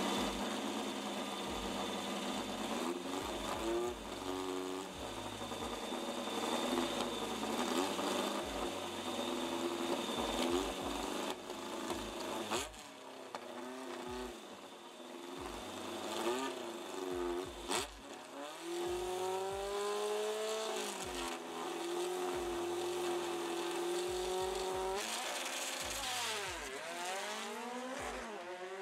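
VW Beetle drag cars' engines idling and revving on the starting line, the pitch rising and falling with several throttle blips and then held steady at high revs. Near the end the cars launch, the engines revving hard and pulling away.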